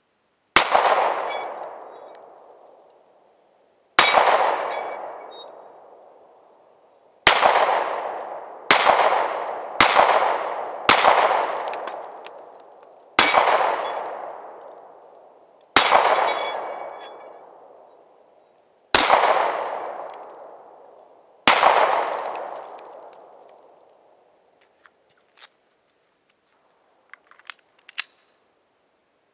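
Pistol fired ten times at an unhurried, uneven pace, one to three seconds between shots, each shot echoing for two to three seconds through the forest. A few faint clicks follow the last shot near the end.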